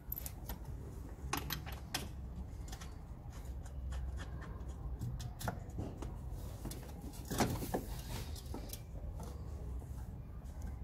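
Scattered light metallic clicks and knocks of hand tools and fasteners being handled on engine-bay parts, over a low rumble of handling noise; the loudest knocks come about seven and a half seconds in.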